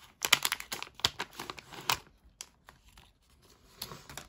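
Holographic foil pouch crinkling and tearing as it is opened by hand: a dense run of crackles for about two seconds, then only a few faint rustles and clicks.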